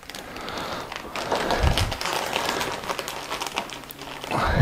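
Rustling and light tapping of hands handling packaging and containers, with a dull knock a little under two seconds in and another low thud near the end.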